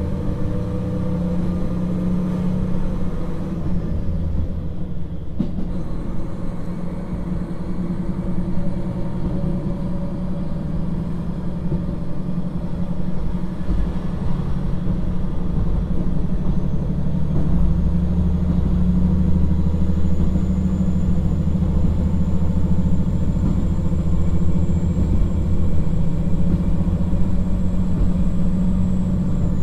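KiHa 40-1700 diesel railcar under way, heard from inside the car: the underfloor diesel engine's steady drone and running noise, growing slowly louder. A faint high whine rises in the second half and then holds.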